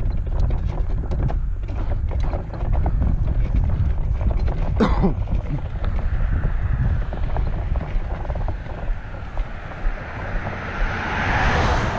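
Footsteps on a roadside gravel and grass shoulder with wind buffeting the microphone. In the second half a car approaches, its tyre and engine noise swelling as it passes close by near the end. A brief falling tone sounds about five seconds in.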